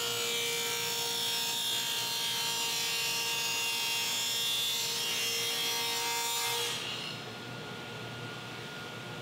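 Table saw with a stacked dado blade cutting a rabbet along the edge of a plywood board: a steady whine under a dense cutting noise. About seven seconds in the cut ends and the saw keeps running unloaded.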